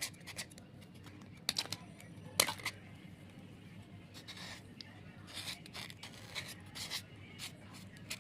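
Brittle white slate with a yellow coating being handled and rubbed clean, giving sharp crunching snaps and crackles. The loudest snap comes about two and a half seconds in, and lighter scattered crackles follow.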